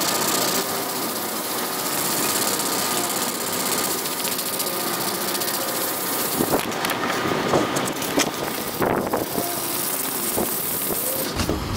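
Sandpaper on a sponge sanding block scrubbing back and forth over a car door's painted panel by hand, a steady rasping noise. The sanding is feathering the hard edges of a paint chip down through clear coat, colour coat, primer and sealer to bare metal.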